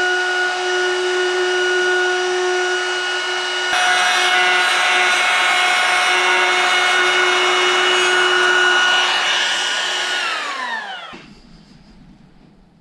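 Electric woodworking power tool running at a steady high whine, starting to cut wood about four seconds in with a rougher rasping noise over the whine. Near the end it is switched off and winds down, its pitch falling until it stops.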